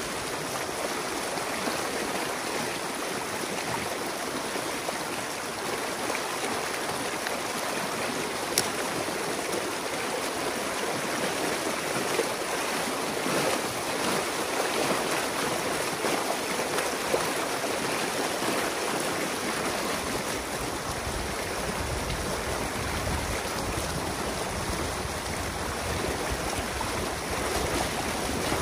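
Water from the flooded pond rushing and churning through a breach in a beaver dam, a steady rushing with splashing. A single sharp click about nine seconds in.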